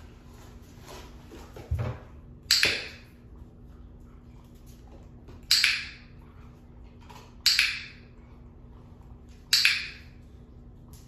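Dog-training clicker clicked four times, about two seconds apart, each a sharp click with a short ring. The clicks mark the puppy's moves onto a small wooden place board.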